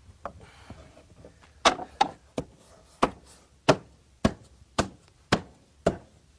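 Hammering on wood: about nine sharp blows, starting about a second and a half in and coming a little over half a second apart.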